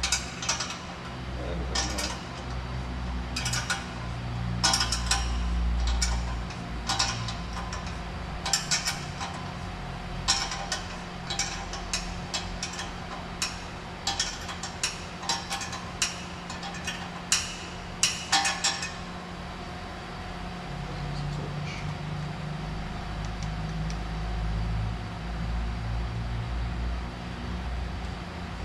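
Irregular metallic clinks and knocks of tools and exhaust pipework being handled and fitted, stopping about two-thirds of the way through, over a steady low hum.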